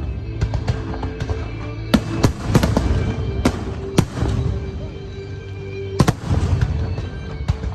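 Aerial fireworks bursting in an irregular series of sharp bangs, several in quick pairs, with crackling between them. Steady music plays underneath.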